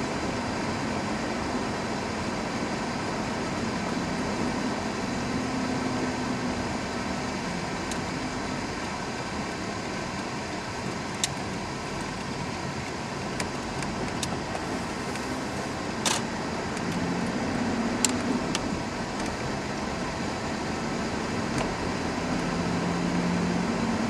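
Steady engine and tyre drone of a car driving, heard from inside the cabin. There are a few sharp clicks or knocks near the middle, the loudest about two-thirds of the way in.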